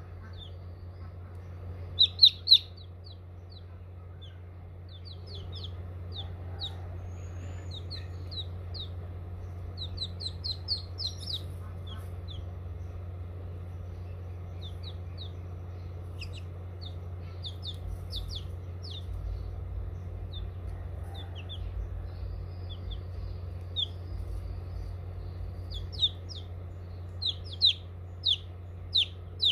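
Young chicks peeping in short, high chirps, scattered and now and then bunched into quick runs, over a steady low hum.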